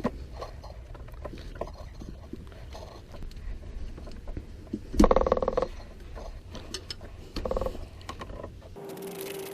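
Ratchet wrench clicking in quick runs, about five seconds in and again briefly later, with small tool knocks between, as the alternator belt tensioner's adjuster bolt is turned. A steady hum comes in near the end.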